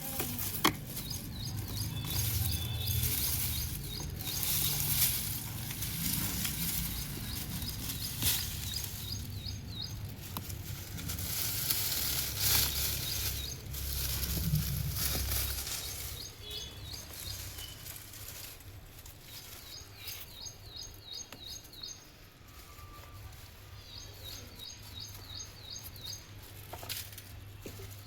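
Soil and vines rustling and scraping as sweet potatoes are dug out of a garden container, with a few sharp clicks, busiest in the first half. A small bird chirps in quick repeated runs in the background, and a steady low hum runs beneath.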